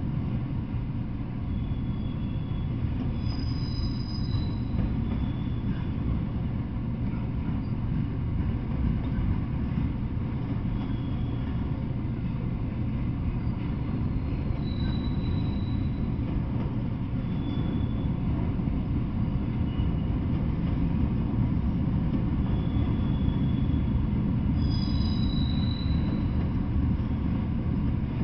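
Freight train of autorack cars rolling past with a steady rumble of steel wheels on the rails. Short high-pitched wheel squeals cut in a few seconds in and again near the end, with fainter ones in between.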